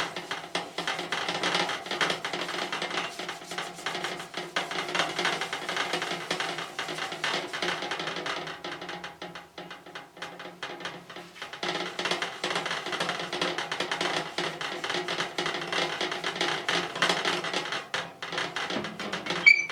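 A rag with ash being rubbed hard back and forth on a fireplace door's glass, making the glass rattle in its frame as a fast, continuous clatter. It eases off for a few seconds about halfway through, then picks up again.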